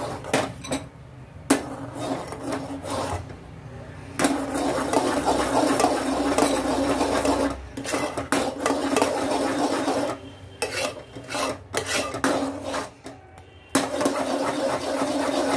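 Metal spoon scraping around the bottom of an aluminium pot while stirring hot milk with cornflour added. The rasping scrape comes in stretches with short pauses between them, and there are a few sharp clinks of the spoon against the pot.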